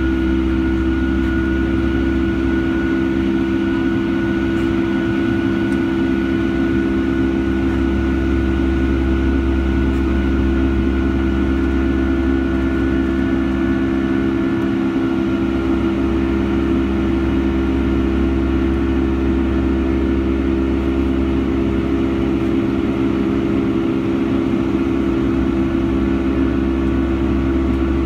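Rolls-Royce RB211 turbofan engines of a Boeing 757-300 heard from inside the cabin over the wing during the climb after takeoff: a loud, steady drone with a low rumble and a steady buzzing hum.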